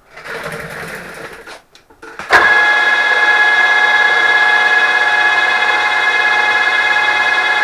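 Handling noise for a second or so, then a milling machine switched on about two seconds in, its spindle motor and gearing running up at once and settling into a loud, steady whine with several high tones.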